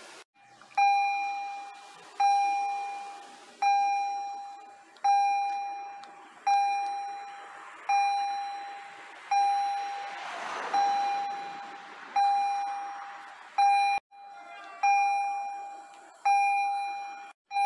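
Electronic warning bell of a Polish automatic level-crossing signal, played through an EHL-S10 loudspeaker: a ringing ding struck about every second and a half and fading after each strike, warning road users that a train is approaching. A car passes over the crossing about ten seconds in.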